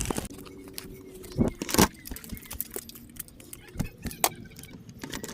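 Scattered metallic clicks and clinks with some rustling, as of climbing and rigging hardware and rope being handled in the tree, with two louder knocks about a second and a half in.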